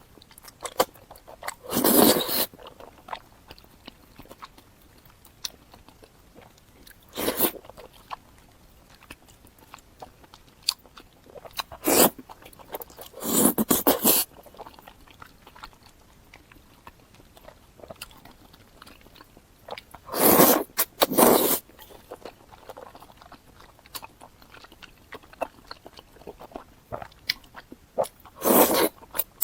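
Close-miked eating of wide glass noodles in sesame paste: about six loud, brief bursts of mouth noise spread through, with quieter chewing and small mouth clicks between.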